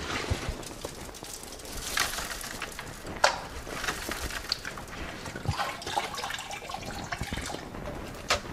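Rinse water streaming and splashing back into a plastic bucket as a mesh strainer bag of pea seeds is lifted out, with a few sharp knocks about three seconds in.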